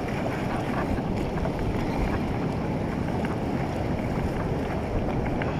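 Steady wind noise on the microphone mixed with the wash of shallow surf at the water's edge.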